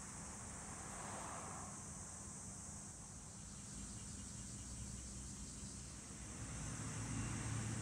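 Steady, high-pitched chorus of singing insects in a summer field, with a low rumble that swells near the end.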